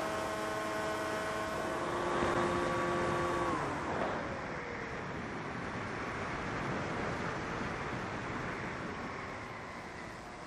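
FPV quadcopter motors whining at a steady pitch, then dropping in pitch about three and a half seconds in as the throttle comes off. After that there is a steady rush of wind noise.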